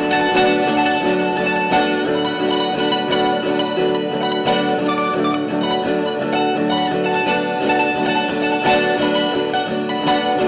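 Instrumental music played on plucked string instruments, with quickly picked notes.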